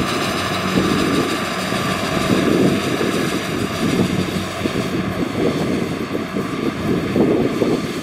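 Crawler rice combine harvester running steadily under load as it cuts and threshes, a continuous mechanical drone with a steady high whine over it.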